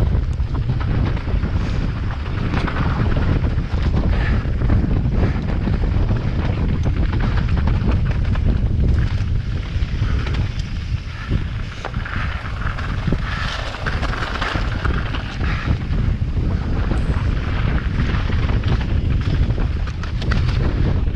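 Wind buffeting the microphone over a steady low rumble, with scattered clicks and rattles from a mountain bike descending a rough trail at speed.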